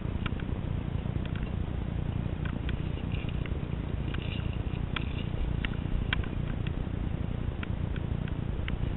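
Via ferrata climbing gear clicking and clinking lightly at irregular moments, as carabiners and lanyards move along the steel cable, over a steady low rumble.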